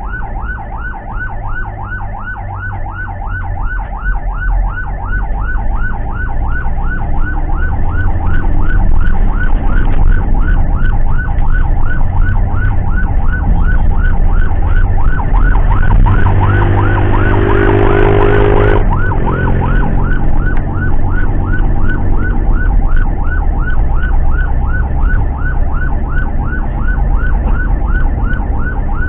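Ambulance siren in a fast yelp, sweeping up and down about three times a second over engine and road rumble, heard from inside the cab of the Toyota ambulance van. About two-thirds of the way through, a louder, lower blast covers it for about two seconds.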